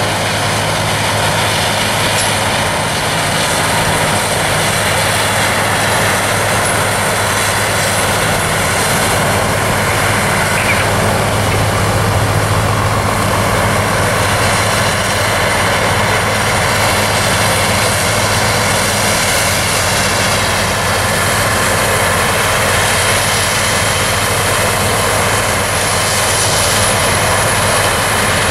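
Farm machinery running steadily: a New Holland combine harvesting corn and a John Deere tractor pulling a grain cart alongside it. A constant low engine hum sits under a wide, even rushing noise.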